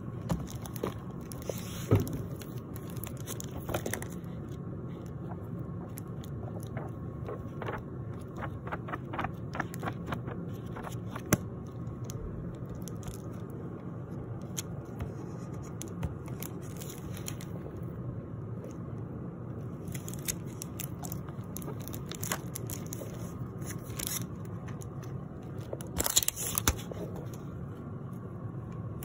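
Pages of a hardback book being handled and turned: paper rustling and crackling with scattered small clicks, in bursts, the loudest near the end. A steady low hum runs underneath.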